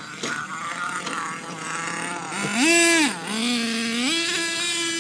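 HPI Savage X 4.6 RC monster truck's small two-stroke nitro engine revving up and down under throttle with a high buzzing note. It is loudest and highest in a short burst about two and a half seconds in, drops back, then holds a steady high rev near the end.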